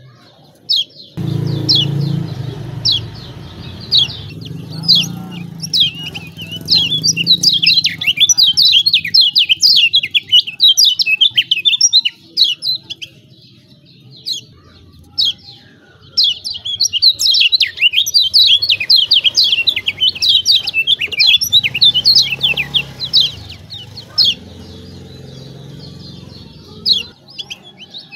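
Kecial kuning (yellow white-eye) giving its rapid 'ciak ciak' chattering calls: dense runs of quick, high chirps in long bursts, with quieter gaps between. This is the agitated chatter played to provoke a lazy white-eye into singing.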